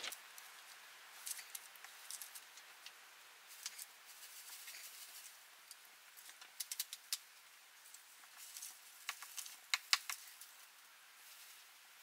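Faint, scattered patter and ticks of snow being knocked off snow-laden pine branches, coming in irregular clusters, most of them around seven and ten seconds in.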